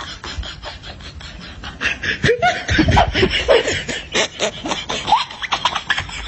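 Human laughter in quick repeated bursts, growing from about two seconds in.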